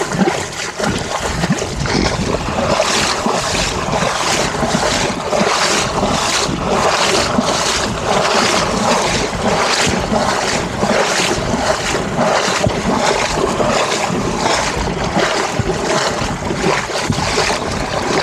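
Legs wading through shallow seagrass flats water, sloshing and splashing about twice a second, with wind buffeting the microphone.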